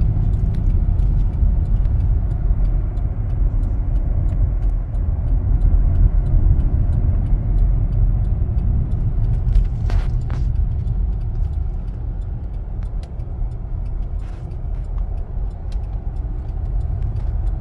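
Steady low rumble of a car driving, with faint scattered ticks and a couple of brief clicks about ten seconds in.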